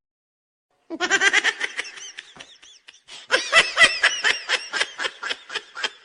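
Recorded laughter used as a funny sound clip: rapid high-pitched laughing bursts start about a second in, die down briefly, then break out again louder.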